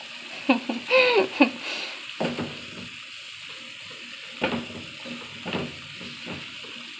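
Rice and red beans frying in a pan, sizzling steadily while a plastic spoon stirs and scrapes through them in a few separate strokes: the rice being mixed into the fried beans. A brief murmur of voice comes about a second in.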